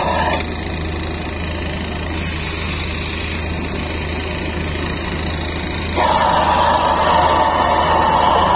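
Battioni Pagani rotary vane vacuum pump running steadily with a constant low hum, drawing air in at the tanker's open suction inlet. About six seconds in, a louder rushing of air joins and holds.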